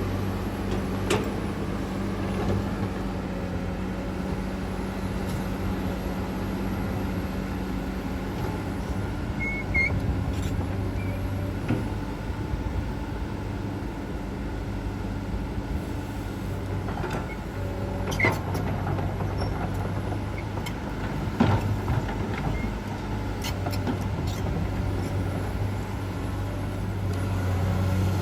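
Komatsu PC200-8 excavator's diesel engine running steadily as it digs and throws soil, its note easing for several seconds in the middle, with scattered knocks and clanks.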